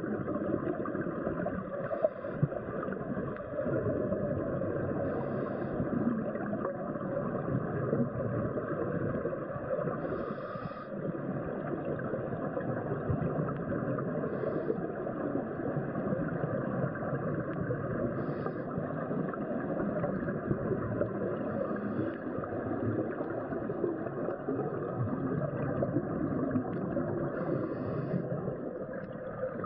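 Muffled underwater rushing heard through a camera housing, with a brief bubbling burst every three to four seconds from a scuba diver's regulator exhaling.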